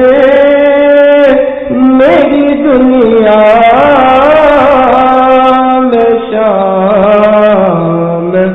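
A naat sung by a solo voice in long, ornamented phrases over a steady low drone. The singing breaks off briefly near the end.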